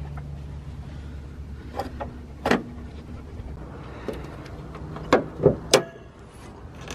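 A pickup's hood being released and opened: a sharp clunk about two and a half seconds in as the release is pulled, then a quick run of metallic clicks and clunks near the end as the hood latch is freed and the hood goes up. A steady low hum runs underneath.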